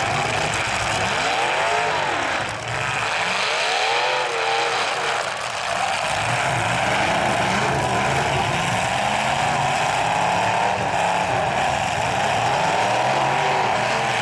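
Demolition derby trucks' engines revving hard, their pitch swinging up and down again and again, then several held at high revs together for the rest of the time.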